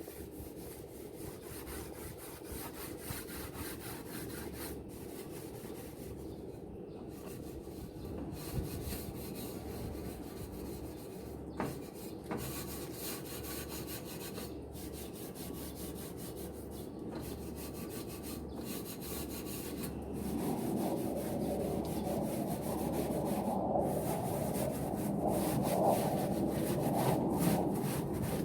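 Scrubbing a stainless steel barbecue grill, a continuous rasping scrub of many short strokes that grows louder about twenty seconds in.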